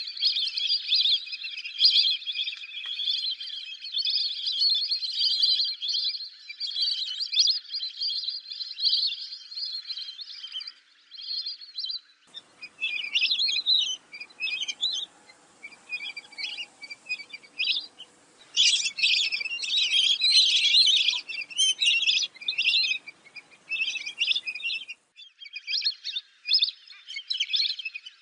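A flock of lesser whistling ducks calling, many shrill whistles overlapping in a dense chorus. About twelve seconds in, the sound changes to separate bursts of whistling over a faint hiss of background noise, with another change near the end.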